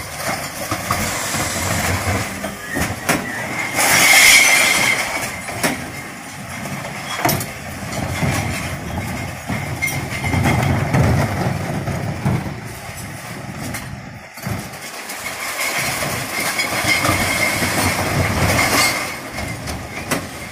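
Refuse truck with a Faun Variopress body and Zoeller rotary lifters working at the rear: engine and lifter hydraulics running while bins of mixed glass, cans and plastic are emptied into the hopper. A loud crashing burst comes about four seconds in, with more clattering and rattling from the hopper near the end.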